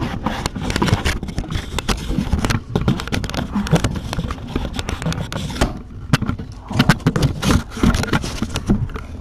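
Handling noise as the camera is picked up and moved: scraping and rubbing with many quick knocks and clatters throughout.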